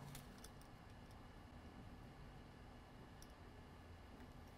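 Near silence: room tone with a few faint clicks of multimeter probe tips touching the circuit board.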